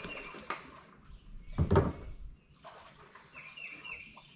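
Kayak paddling noises: water swishing and one loud thump about one and a half seconds in. A bird gives a few short chirps near the end.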